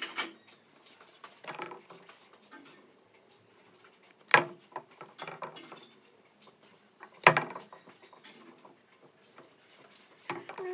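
Scattered clinks and knocks of kitchen utensils and dishes handled on a counter, two sharp ones about four and seven seconds in, with lighter ones between.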